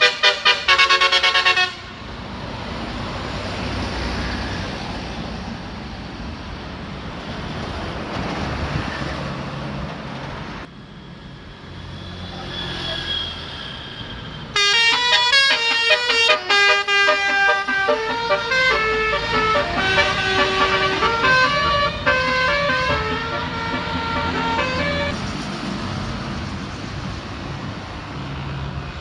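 Bus telolet horn: a bus's multi-tone musical air horn blasts briefly at the start. Later it plays a long run of quickly changing notes for about ten seconds, with engine and road noise in between.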